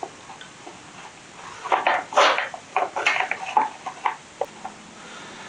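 Metal clinks, knocks and scrapes as a cover is fitted back onto a mini bike's engine, with a cluster of sharp knocks in the middle.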